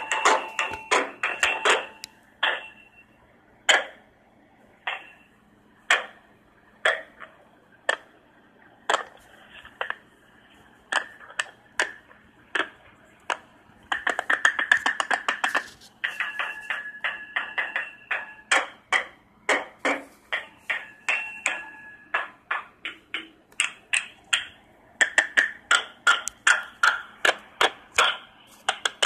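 Irregular sharp taps and clicks, each with a brief ringing ping. They come about one a second at first, then in quick rattling flurries about fourteen seconds in and again near the end.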